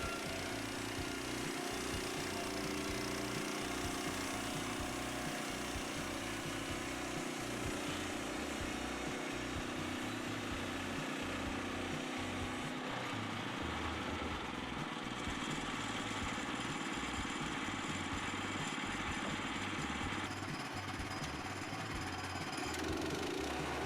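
Petrol engine of a Woodland Mills HM122 portable band sawmill running steadily under load as the blade cuts through a log. Its tone changes abruptly about halfway through and again a few seconds before the end.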